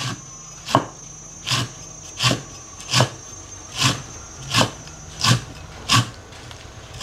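Cleaver chopping lemongrass and green chili on a round wooden chopping block: single knocks at a steady pace, about one every three-quarters of a second.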